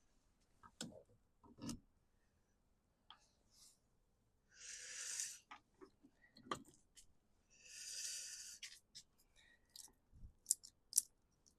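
Scattered light clicks and knocks of chainsaw parts being handled, with two hissing puffs of about a second each in the middle.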